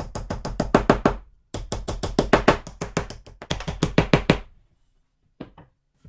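Wooden mallet tapping wooden dowels down into drilled holes in a wooden board, quick light blows at about nine a second in two runs with a short pause about a second and a half in. Two lighter knocks follow near the end.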